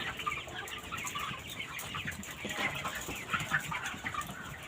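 A flock of 26-day-old farm chickens in their shed, clucking and cheeping together in a steady chatter of many small overlapping calls.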